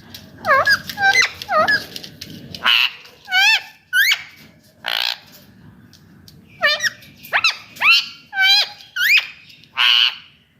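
Indian ringneck parakeet calling: a string of short calls, each sliding up or down in pitch, broken by a few harsher squawks and a pause of about two seconds midway.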